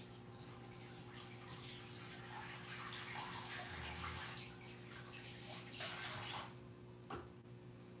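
A water tap running faintly out of view, used for washing a face, shutting off about six and a half seconds in, followed by a single click. A steady low hum sits underneath.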